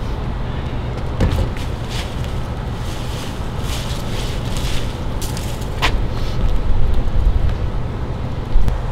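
Steady low outdoor rumble, with a few short rustles and scuffs on top and one sharper scrape about six seconds in.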